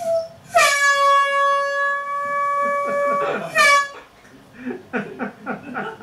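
Handheld compressed-air horn blasting one long, steady, loud note for about three seconds, after a very short toot at the start. A person's voice follows in short broken sounds near the end.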